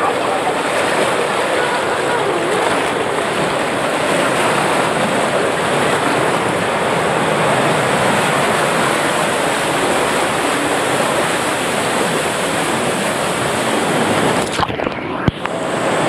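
Water rushing and churning down a white-water slide channel, close up and steady, with some wind on the microphone. About fifteen seconds in the noise briefly drops out with a sharp click before the rushing water picks up again.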